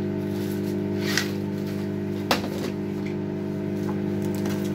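Steady electrical hum of a running kitchen appliance, with a few light handling knocks and one sharper knock about two seconds in.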